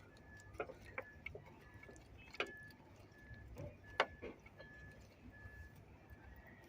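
Scattered clicks and knocks of fuel injectors and fuel rail parts being handled and pulled apart by hand. A faint high beep repeats a little under twice a second behind them.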